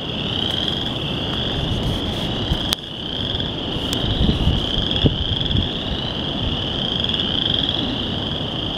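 Dense chorus of small frogs, many high-pitched trilling calls overlapping into one continuous shrill sound, over a low rumbling noise.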